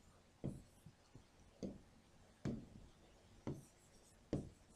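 Marker pen writing on a whiteboard: a few faint, short strokes and taps, roughly one a second.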